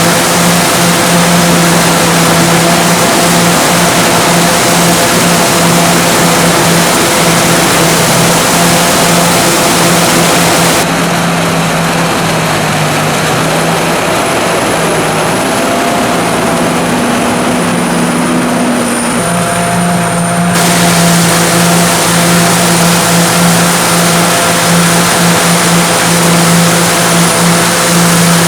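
Sakpattana KM-D 4.1 corn combine harvester running: a steady machinery hum with a thin high whine over dense mechanical noise. For about ten seconds in the middle the high end drops away and the hum shifts slightly, then the full sound returns.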